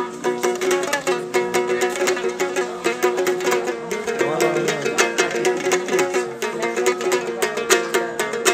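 Tajik dumbrak, a long-necked wooden lute, strummed fast and rhythmically, repeating a few ringing notes as an instrumental passage between sung verses.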